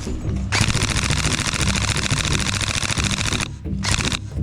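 Airsoft rifle firing on full auto: one long burst of rapid, evenly spaced shots, about three seconds long, starting about half a second in, and a second burst starting near the end.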